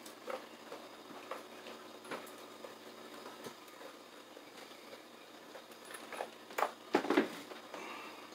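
Scattered footsteps and light knocks of a person moving about a small room, with a louder cluster of several sharp knocks about six and a half to seven seconds in.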